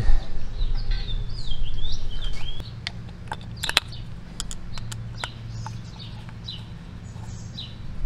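Birds chirping, with a few sharp small metallic clicks about three to four seconds in as a hex key is handled against the steel blade-guide block and its set screws. A low steady hum runs underneath.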